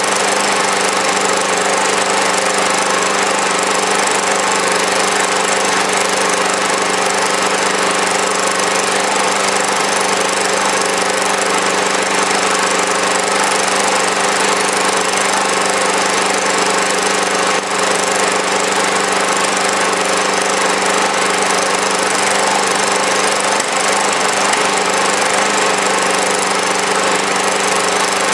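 Small engine in standard trim, without HHO, running steadily at a set speed while driving a generator under a constant electrical load of about 350 watts.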